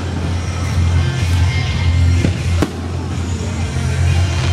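Fireworks going off in several sharp bangs, over music playing and the voices of onlookers.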